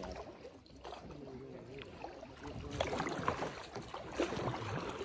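Kayak paddle dipping and splashing in calm lake water, with drips and light knocks on the boat, the strokes and splashes coming thicker from about three seconds in.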